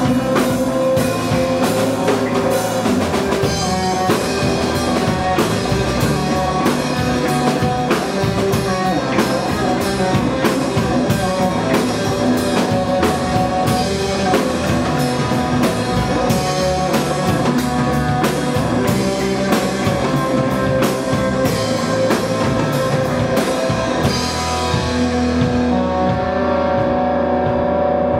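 Live rock trio playing an instrumental passage on electric guitar, bass guitar and drum kit, the drums keeping a steady beat. About 24 seconds in the drums and cymbals drop out, leaving a held guitar and bass chord ringing.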